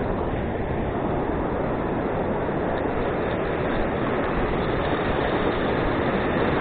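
Steady, even noise of ocean surf on the beach, mixed with wind on the microphone.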